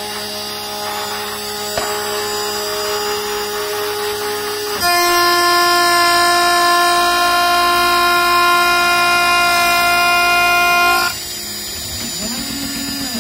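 CNC router spindle with a 12 mm four-flute end mill at 20,000 rpm facing aluminium, a steady pitched whine of several tones. About five seconds in, as the cut loads up, it turns much louder and shriller and holds for about six seconds, then drops back to a lighter whine. This is an aggressive 1 mm-deep cut at 1000 mm/min.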